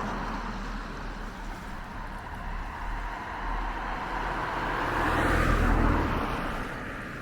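A car passing by on a road, growing louder to its peak about five to six seconds in and then fading away.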